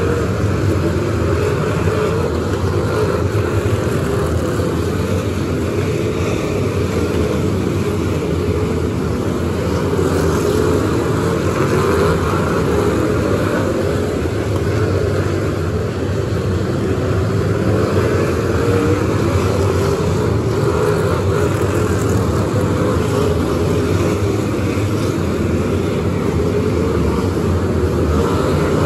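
A pack of figure-8 race cars with their engines running hard on track, many engines blending into one continuous loud drone. Its pitch wavers up and down as cars accelerate, lift and pass.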